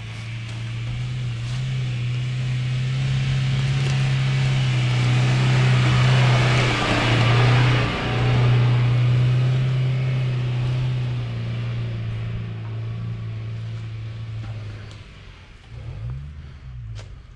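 Suzuki Grand Vitara engine running at steady revs as the 4x4 drives up an off-road slope past the listener. It grows louder to a peak about halfway through, dips briefly, then fades away.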